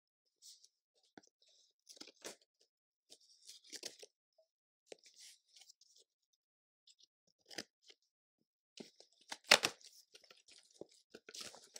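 A cardboard snack box being opened by hand: scattered crackling and scraping of cardboard and tape in short bursts, with one much louder crack about nine and a half seconds in.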